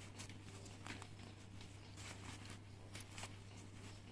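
Faint rustling of a down sleeping bag's nylon shell and light clicks of its zipper being handled, as the upper zipper, off its track, is worked to get it back in.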